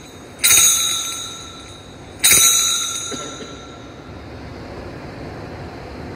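Altar bell struck twice, about two seconds apart, each ring sharp at first and then fading away. It is rung at the elevation of the consecrated host during the Eucharistic prayer.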